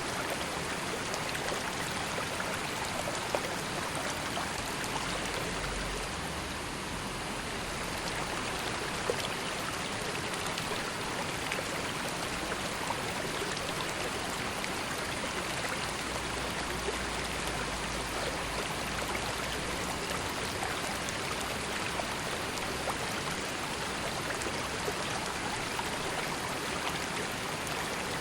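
A calm river flowing steadily: an even rush of water with light splashes and trickles scattered through it.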